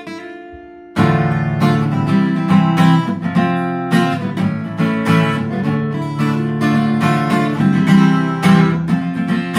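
Fender CD-60 V3 dreadnought acoustic guitar being strummed. A ringing chord fades out, then steady rhythmic chord strumming starts about a second in and carries on.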